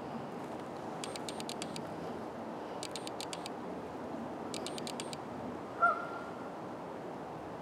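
Steady outdoor background hiss with three short runs of rapid high clicks, about eight a second. About six seconds in comes a single short, loud honk from a waterfowl, the loudest sound here.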